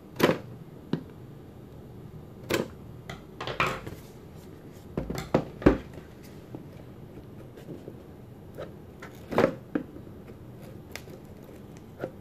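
Scissors scraping and snipping at a hard seal on a cardboard product box, with the box being handled and shifted on a table: about half a dozen sharp clicks and scrapes at irregular intervals.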